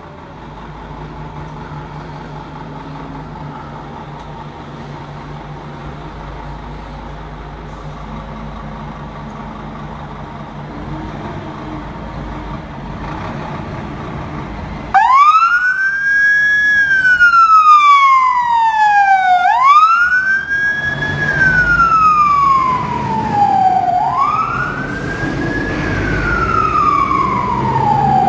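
Scania P360 fire engine's diesel engine running steadily. About halfway through, its siren switches on suddenly and loud: a wail rising quickly and falling more slowly, repeating about every four and a half seconds, over the engine as the truck pulls away on an emergency run.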